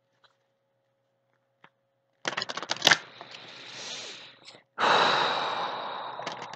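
A deck of oracle cards being shuffled by hand. A quick patter of card edges comes about two seconds in, and a longer swishing shuffle starts suddenly at about five seconds and slowly fades.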